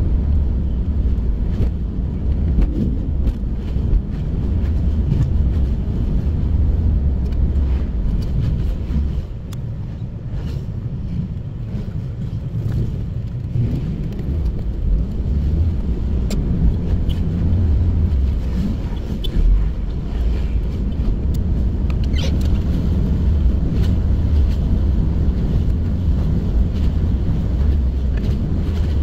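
Steady low rumble of road noise from a moving vehicle, with a few faint clicks over it.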